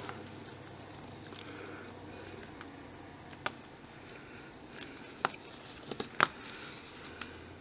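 Faint handling sounds of fingers pressing and shaping soft polymer clay, over a steady hiss, with a few short sharp clicks about three and a half, five and six seconds in.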